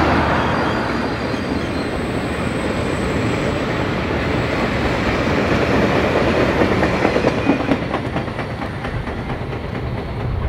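A train rolling past with a steady noise, and a run of clicks from its wheels in the last few seconds.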